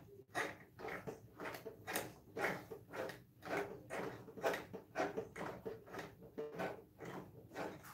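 Serger turned over slowly by hand at its handwheel, its needle and looper mechanism clacking about twice a second in an even rhythm.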